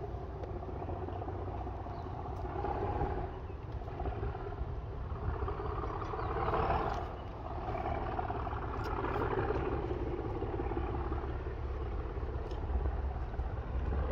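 Class 37 diesel-electric locomotive 37109 with its English Electric V12 engine running, a steady deep rumble whose engine note swells and eases twice.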